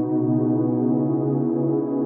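Ambient synthesizer pad music: slow sustained chords with no beat, moving to a new chord right at the start.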